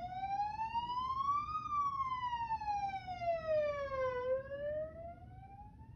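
Police siren sound effect: a single tone that slowly rises, falls and starts rising again, taking about two and a half seconds for each sweep.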